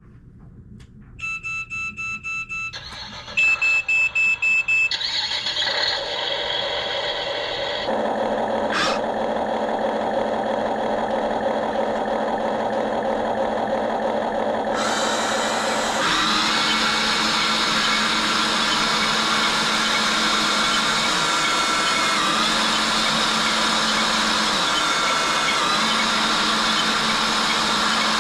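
Toy RC excavator switching on with a series of electronic beeps, then running with a steady engine-like hum and whirring motors.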